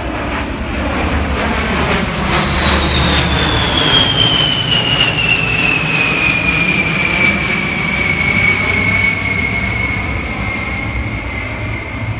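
B-52 bomber's eight turbofan jet engines on a low flyby: a low rumble under a high whine that slides steadily down in pitch as the aircraft passes and moves away, loudest about four seconds in.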